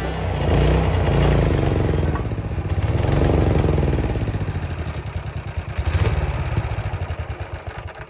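Gas engine of a hydraulic log splitter running, its note and loudness swelling and easing several times as the ram works.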